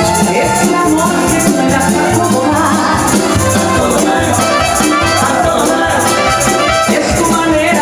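Live salsa band playing dance music, with maracas shaking over a pulsing bass.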